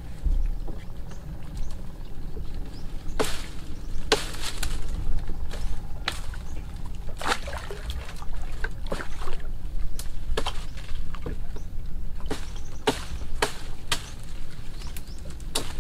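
A hand blade chopping leafy tree branches: about fifteen sharp, irregular strikes, some in quick pairs, over a steady low rumble.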